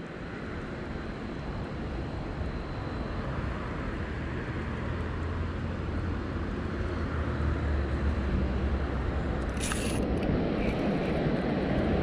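A steady low engine drone that grows slowly louder throughout, with a short high hiss about ten seconds in.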